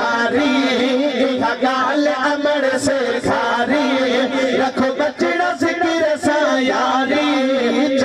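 Two men singing a hamd, an Islamic devotional hymn in praise of God, together into microphones in a long, wavering melodic line.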